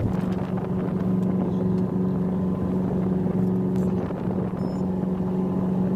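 A motor boat's engine running steadily under way, an even drone that holds one pitch throughout.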